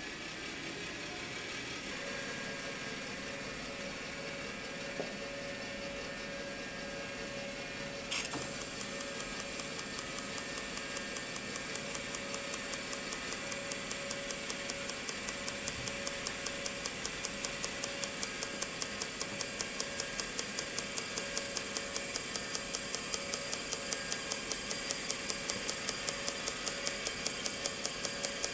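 RION SG-07 sound spectrograph running: its motor gives a steady whir with a held hum. About eight seconds in, a click starts a steady run of evenly spaced ticks, which grow slightly louder as the stylus marks the spectrogram onto the paper on the spinning drum.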